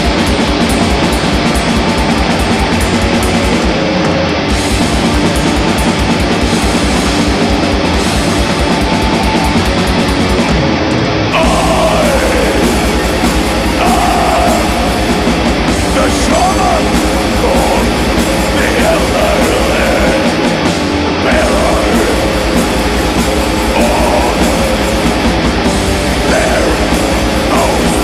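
A heavy metal band playing live: distorted electric guitars over fast, driving drums. Vocals come in about a third of the way through.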